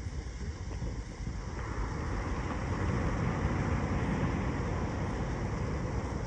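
Wind buffeting the microphone in a low rumble that swells and grows louder from about a second and a half in, then eases slightly near the end.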